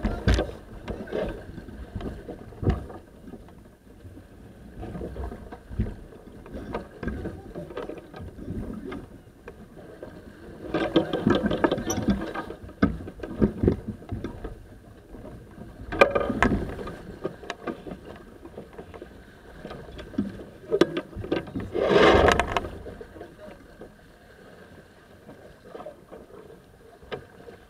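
Sailing keelboat under way: a steady rush of wind and water along the hull, with knocks and rustles as the crew work lines and the spinnaker pole on deck. There are three louder noisy bursts, the longest about a third of the way in.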